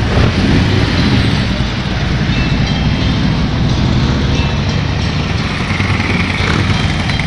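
Harley-Davidson touring motorcycles riding slowly past, their V-twin engines running loud and steady.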